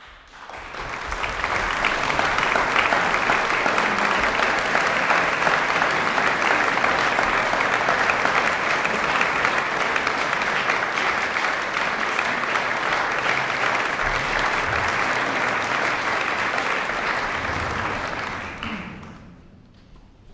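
Audience applauding, building up in the first second or two, holding steady, then dying away near the end as the performers take their places.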